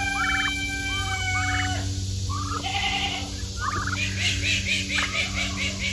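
Domestic turkeys calling in a pen: a few separate pitched calls, then a fast rattling run of calls in the second half, typical of toms gobbling. A steady low hum runs underneath.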